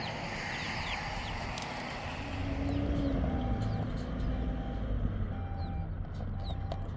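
Pickup truck engine running at low revs as the truck rolls slowly along a dirt track, a steady low rumble that grows louder a little over two seconds in. Birds chirp faintly now and then.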